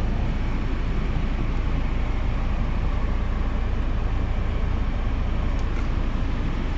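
VW Passat B6 1.9 TDI four-cylinder diesel engine idling steadily, warmed up to operating temperature.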